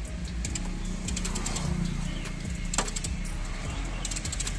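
Bursts of rapid metallic clicking and one sharp crack about three seconds in, over a steady low hum: a heavy chain hooked to a bent front frame side member of a Maruti Suzuki Wagon R is being pulled tight to straighten the frame, which was pushed in when the car ran up onto a heap of earth.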